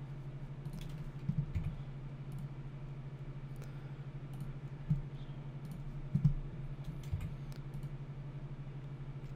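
Scattered clicks of a computer mouse and keyboard while working software menus, a few sharper taps among them, over a steady low hum.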